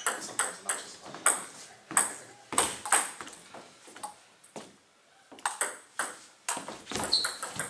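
Table tennis ball clicking off bats and the table, sharp pings about three a second, with a pause of about a second near the middle before the clicks resume. A brief high squeak comes near the end.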